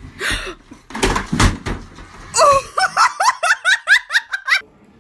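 A flat-screen TV knocked off a dresser crashes to the floor about a second in. A person then breaks into a quick run of laughter that stops shortly before the end.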